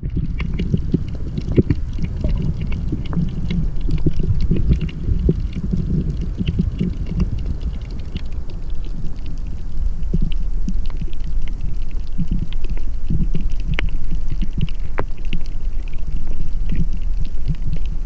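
Underwater sound through a camera housing: a steady low rumble of moving water with many scattered crackling clicks.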